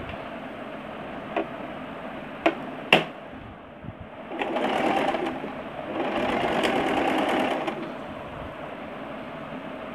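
Small portable sewing machine running in two short bursts, each a second or two long, stitching a straight seam through thin fabric. A few sharp clicks come before the first run.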